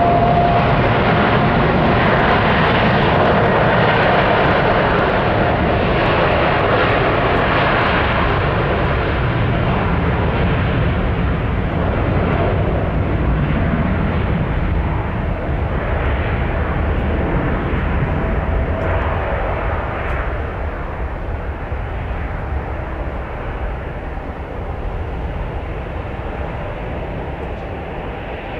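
Boeing 787-10 Dreamliner's jet engines at take-off thrust during the take-off roll: a loud roar with a steady high whine at first, fading slowly as the airliner moves away down the runway.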